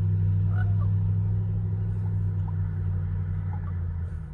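Car engine idling, heard from inside the cabin as a steady low hum that drops in level near the end. A few faint crow or raven calls sound over it.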